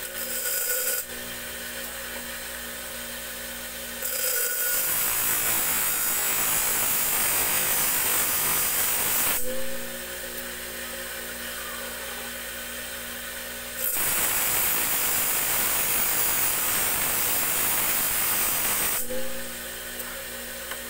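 A large motor-driven grinding wheel hums steadily while a small steel tari blade is pressed against it in two long passes of about five seconds each, each giving a loud gritty grinding noise, with a brief touch at the very start. The blade's thick, hard steel heats up quickly as it is ground.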